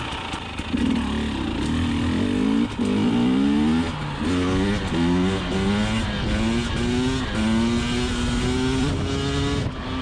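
KTM 300 XC TPI two-stroke dirt bike engine under way, its revs rising and dropping in quick repeated swells, then holding steadier near the end.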